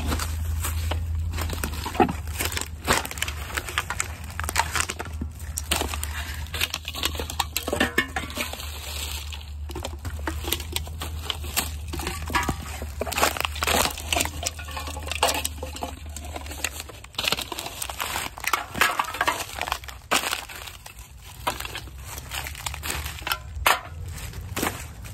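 Gloved hands rummaging through litter and brush: irregular crackling, crinkling and snapping of plastic bottles, wrappers, paper and twigs as aluminum cans are searched out and picked up. A low steady rumble underlies it and stops about two-thirds of the way through.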